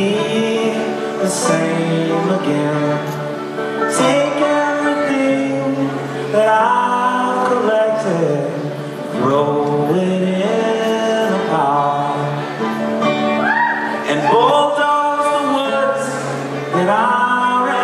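Folk-rock band playing live, with male voices singing over acoustic instruments.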